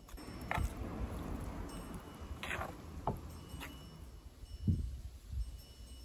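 Chopsticks and a wooden spoon knocking and scraping against a stoneware bowl as sliced bitter melon is mixed with doenjang: five or so sharp clinks and taps with soft scraping in between.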